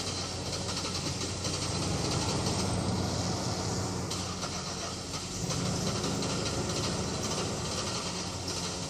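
Buick car engine running, a steady low hum with hiss that swells slightly twice.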